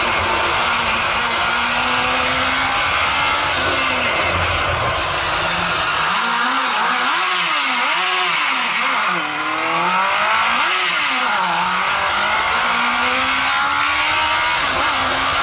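Honda CBR1000F inline-four engine driving an off-road buggy at speed. Its pitch climbs steadily under acceleration, then it revs up and down about four times in quick succession around the middle before pulling steadily again, over a constant rushing hiss.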